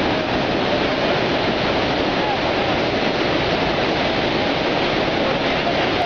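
Jog Falls, a large plunge waterfall: the steady, unbroken rush of a great mass of falling water.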